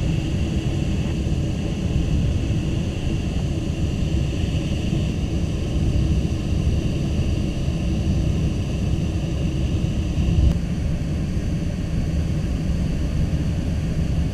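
Steady rush of airflow over a two-seat glider's canopy, heard inside the cockpit, with a faint steady high tone that fades about ten seconds in.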